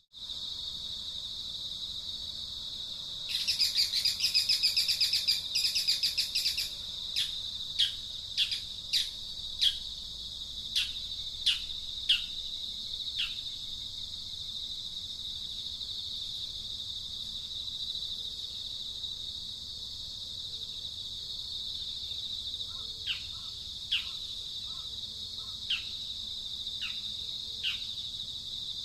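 A steady, high insect drone with a bird calling over it: a burst of rapid trilling a few seconds in, then a run of quick whistled calls, each sweeping downward. The calls come again, more sparsely, near the end.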